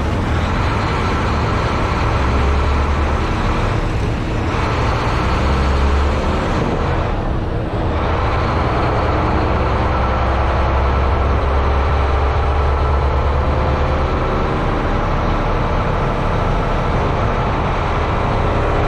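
Mack truck's diesel engine running under way, with road noise, the engine pitch drifting up and down and two brief dips in the sound.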